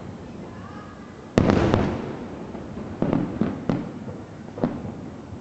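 Fireworks bursting overhead: one loud boom about a second and a half in that rumbles away, then four smaller bangs in quick succession.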